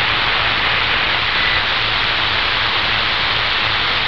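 Steady hiss of radio static from a CB receiver with its squelch open, heard when no station is transmitting on the channel.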